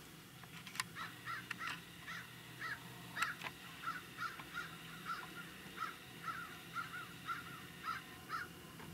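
Birds calling in a quick series of short calls, about two or three a second, with a couple of sharp clicks among the first few calls.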